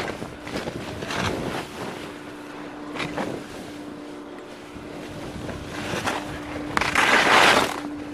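Skis hissing and scraping through snow as they turn, in several separate swishes, the longest and loudest about seven seconds in.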